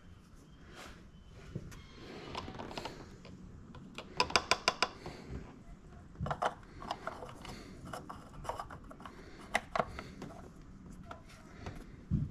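Plastic clicks and knocks from a plastic oil funnel being lifted out of the engine's oil fill neck and the oil filler cap being put back on. A quick run of about six sharp clicks comes a little after four seconds in, with scattered single clicks after it.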